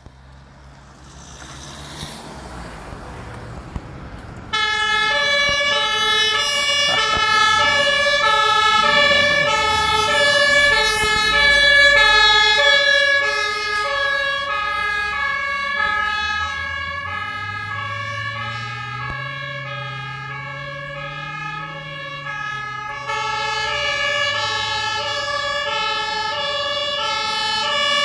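A car passes, then about four seconds in a German fire engine's two-tone siren (Martinshorn) switches on and keeps alternating between two pitches as the fire trucks pull out. A truck engine revs up and back down under it, and the siren gets louder near the end.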